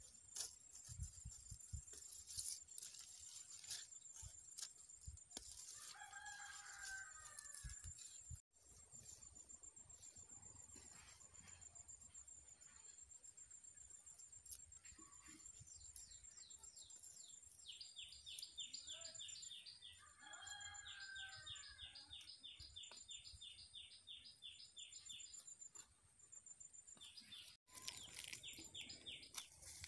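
A rooster crows faintly twice, about six seconds in and again around twenty seconds. Behind it run a steady high insect trill and, in the middle, rapid high chirping. Soft rustles and snaps of spinach leaves being plucked come in the first few seconds.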